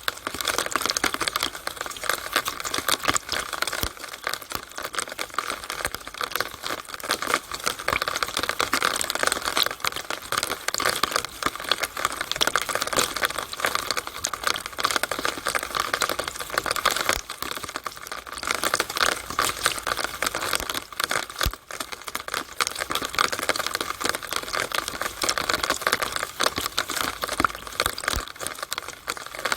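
Rainwater running through a rainwater downspout: a steady, dense crackle of splashing and dripping water.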